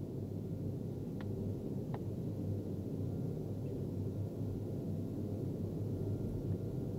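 A steady low rumbling drone from the cartoon's ambient sound effects, with two faint clicks about a second and two seconds in.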